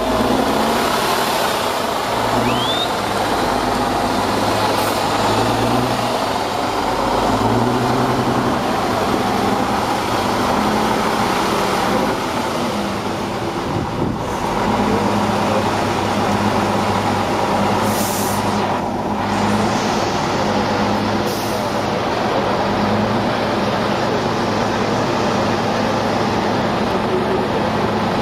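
Tatra 8x8 trial truck's diesel engine running under load, its pitch shifting up and down in the first several seconds as it is revved, then holding steady. Two short hisses stand out in the second half.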